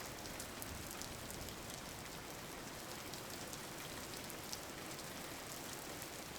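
Steady rain falling on a surface, an even patter with scattered individual drop ticks.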